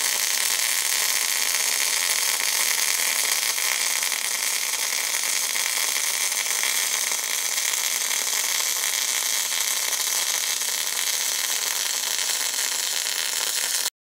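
MIG/MAG welding arc from a REHM MEGA.ARC² unit running a fillet weld on steel with 1.0 mm SG2 wire under 82/18 argon-CO2 shielding gas at 34 V. It makes a loud, steady, even hiss with no crackle, typical of spray-arc transfer, and cuts off suddenly near the end as the arc stops.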